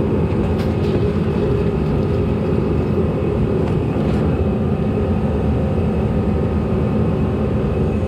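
Steady mechanical drone with a low hum, with a few faint clicks about half a second and about four seconds in.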